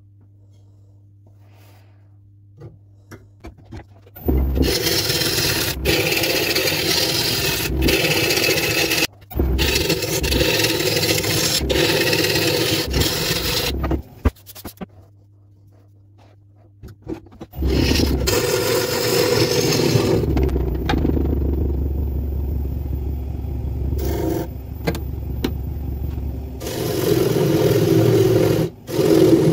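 A gouge cutting into a spinning bowl of green, spalted ash on a wood lathe, a loud scraping hiss of the tool peeling off shavings. It comes in long runs, starting about four seconds in, with a few seconds' pause around the middle where only a low hum is left.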